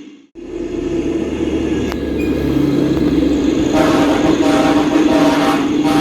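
Steady heavy-vehicle engine rumble that cuts out briefly at the start and then builds back. About two-thirds of the way in, a sustained horn-like tone joins it.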